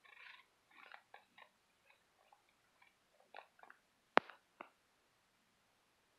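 Close handling noise: soft rustles and small scattered clicks, with one sharp click about four seconds in.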